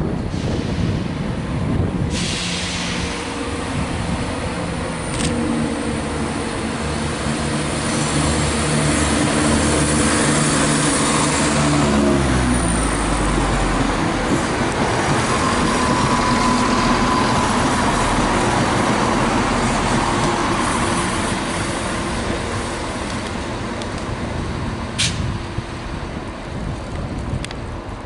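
Cross Country Class 170 Turbostar diesel multiple unit passing at low speed: its underfloor diesel engines run under power with a steady note that drops away about twelve seconds in. Wheel and rail noise is loudest as the train goes by, with a brief thin squeal a little past halfway.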